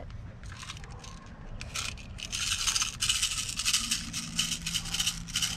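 Rattling and scraping from a spring-powered airsoft pistol being handled and its slide worked to cock it, getting louder about two seconds in.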